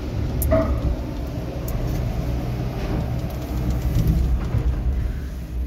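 Steady low rumble and rattle of a POMA gondola cable-car cabin, heard from inside the cabin as it moves out of the station and runs along the rope.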